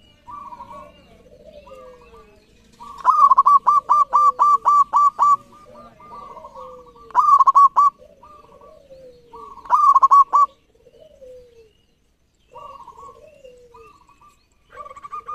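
Zebra dove (perkutut) cooing. About three seconds in comes a loud, rapid run of about eight short, clipped notes, then two shorter runs a few seconds apart, with softer, lower falling coos between them.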